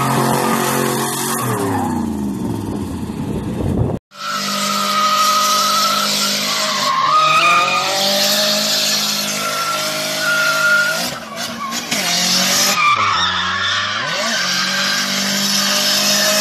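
Cars doing donuts: high-revving engines and continuous tyre squeal as the rear wheels spin and slide on the pavement. The sound cuts off abruptly about four seconds in and another car's engine and squealing tyres take over. Near the end the revs drop and climb back up.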